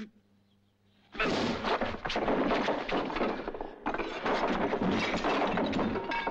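A sharp slap, then two men scuffling: a dense clatter of blows, shoving and things knocked about in two long stretches, starting about a second in.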